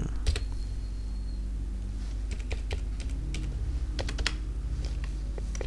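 Typing on a computer keyboard: a dozen or so separate keystrokes at an uneven pace, over a steady low hum.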